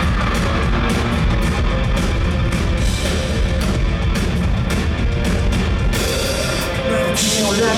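Live rock band playing an instrumental passage at full volume, with guitar and a driving drum kit and no singing.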